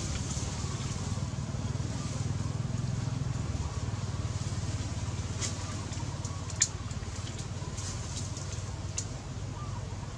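Thin plastic water bottle crackling and clicking as a macaque grips and tips it to drink, with one sharp click a little past the middle. A steady low hum runs underneath.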